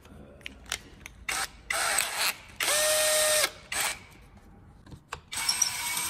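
Workshop clicks and knocks, then a short burst of noise and a small power-tool motor that spins up, runs for under a second and winds down. Just after five seconds in, a power tool starts and keeps running with a steady, noisy sound.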